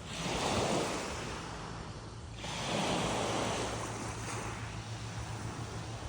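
Small sea waves washing onto the beach. The surf swells twice, about two and a half seconds apart.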